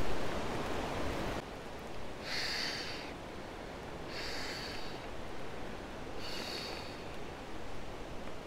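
Three breaths blown by mouth into the valve of an inflatable camping pillow, each a breathy rush about a second long. Wind noise on the microphone dies away about a second and a half in.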